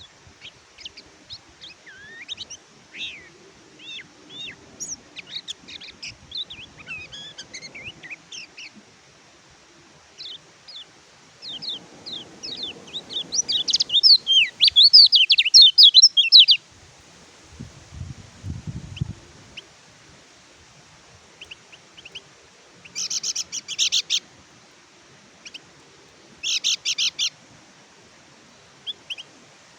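Kecial kuning (pleci white-eye) singing: rapid high twittering phrases of quick up-and-down chirps, with the loudest, fastest run about halfway through, then two short dense bursts of song and a few single chirps.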